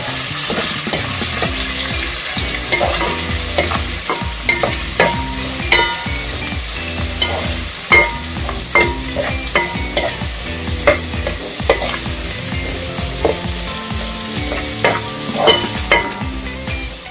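Chopped onion, garlic and capsicum sizzling in hot oil in an aluminium pan while a metal spoon stirs them, knocking and scraping against the pan in repeated clicks.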